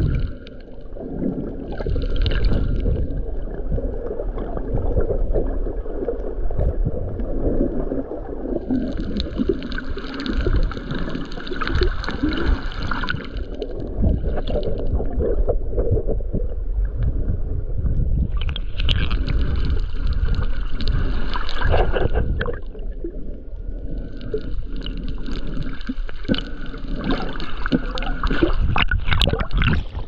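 Water rumbling and gurgling around an underwater camera while snorkeling, with several stretches of brighter splashing and hiss.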